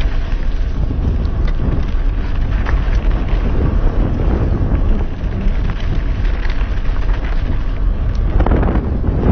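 Wind rushing over a helmet-mounted action camera's microphone while a mountain bike rolls along a dirt trail, with many small clicks and rattles from the tyres on loose gravel.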